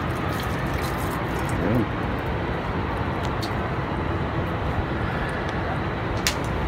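Steady outdoor background noise, a low rumble with hiss, with a few faint clicks and one sharp click near the end.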